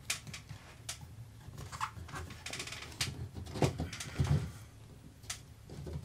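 Scattered clicks and a short crackling stretch as a recessed light's small plastic junction box and wiring are handled and pushed up through the ceiling hole. About three and a half seconds in come a few dull knocks as the slim recessed LED light is pressed up into its hole until it sits flush.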